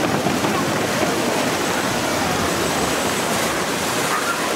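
Steady rushing of water in a river rafting ride's flume and channel, churned by a round raft boat sliding through.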